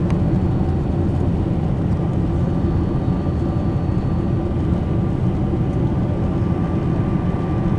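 Steady low cabin rumble inside a Boeing 747-400 climbing after take-off: its four jet engines and the airflow over the fuselage, heard from a window seat. A faint steady whine joins about two seconds in.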